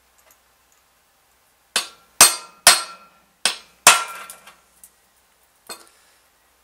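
A hammer strikes a steel punch five times in quick succession, each a sharp metallic clink with a short ring, then gives one lighter tap near the end. The blows drive the ground-down rivets out of a chainsaw chain link.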